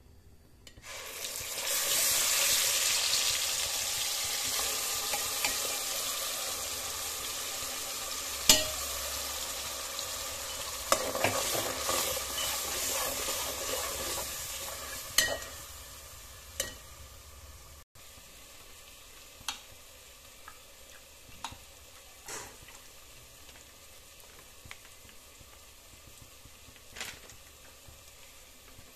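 Tomato puree dropped into hot oil in an aluminium pot, sizzling loudly and dying down over about fifteen seconds as it is stirred, a metal slotted spoon clinking against the pot now and then. After that it is much quieter, with a few light clicks.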